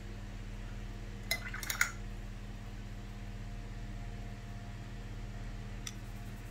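A paintbrush clinking lightly against a ceramic palette dish while paint is mixed: a short cluster of small clinks about a second and a half in, and a single one near the end. A steady low hum runs underneath.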